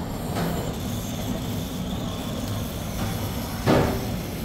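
Handheld gas torch on a canister running with a steady roaring flame, then a sudden loud whoosh near the end as a large burst of flame flares up.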